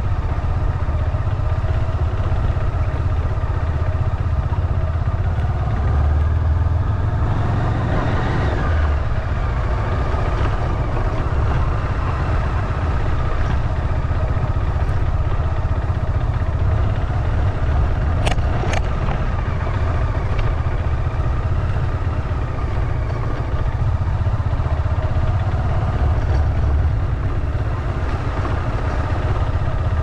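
Steady engine and road noise from a moving vehicle, with a heavy low rumble. A tone glides down about eight seconds in, and two sharp clicks come a little past halfway.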